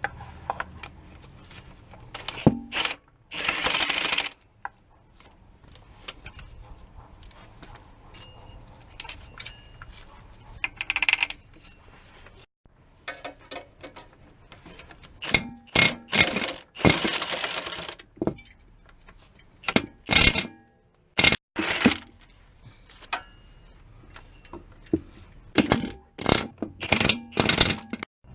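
Metal hand tools and parts clinking and clattering during work on a car, with a few short rushing noises lasting about a second each.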